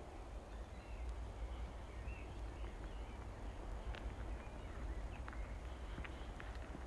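Birds chirping faintly over a steady low rumble, with a few sharp ticks.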